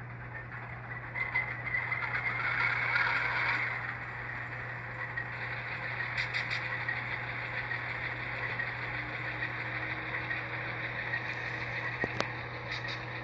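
Diesel prime-mover sound from a SoundTraxx DCC sound decoder, played through the HO-scale locomotive's small onboard speaker: it surges for a few seconds, then settles into a steady idle. A couple of sharp clicks come near the end.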